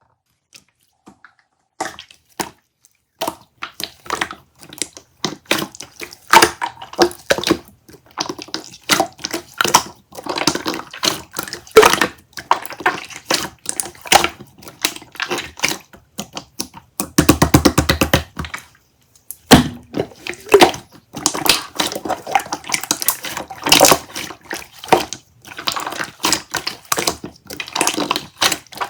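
Making flower tea: irregular clinks and taps of teaware being handled, with water being poured, densest for a second or so around the middle.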